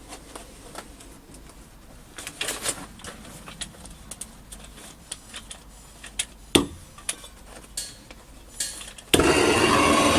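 Metal clinks and knocks from handling, then about nine seconds in the home-made propane furnace's burner comes on with a sudden, loud, steady rush.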